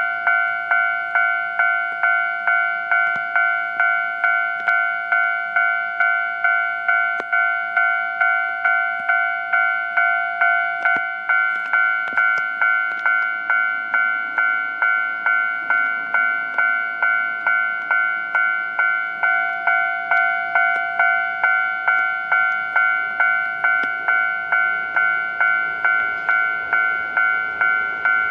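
Japanese railway level-crossing warning bell ringing: an even, repeating two-tone clang at about two strokes a second, signalling that a train is coming. Near the end the rumble of the approaching train begins to rise under it.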